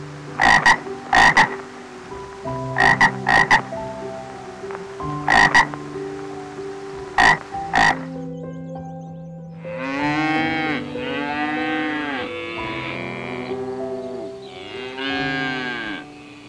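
Frog croaking, about a dozen short croaks singly and in quick pairs and threes. After a short pause, about ten seconds in, a cow moos several times, each moo rising and falling in pitch. Steady held notes run underneath.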